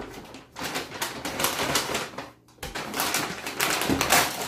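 A brown paper grocery bag crinkling and crackling as it is crumpled in the hands, in irregular bursts with a short pause about halfway through.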